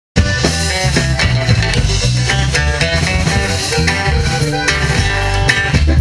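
Norteño band playing an instrumental intro with accordion, bajo sexto, bass and drums, without singing, starting abruptly at the very beginning.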